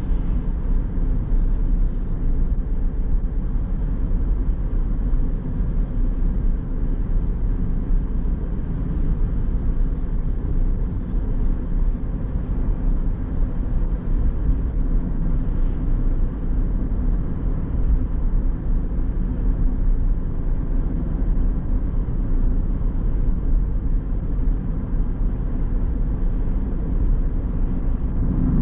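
Car driving at a steady pace, with an even, low rumble of road and engine noise.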